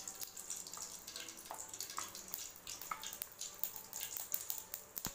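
Mustard seeds spluttering in hot oil in a kadai: irregular small pops and crackles over a soft steady sizzle.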